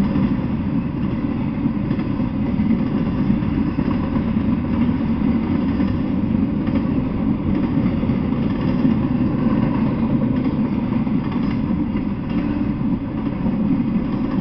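Double-stack intermodal freight train rolling past: steady noise of steel wheels running on the rails as the well cars go by.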